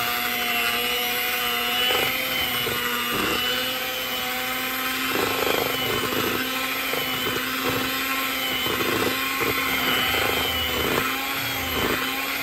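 Proctor Silex electric hand mixer running at a steady speed, its beaters whirring through thick cream cheese and sweetened condensed milk in a stainless steel bowl. Short knocks come now and then as the beaters touch the metal bowl.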